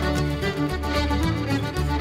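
Instrumental background music with sustained melody notes over a steady beat.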